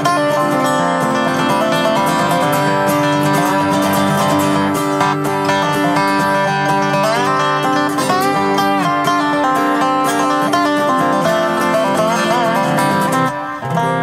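Acoustic guitar and dobro playing an instrumental passage, with slid notes that bend and waver. The playing breaks off briefly near the end, then a new chord rings out.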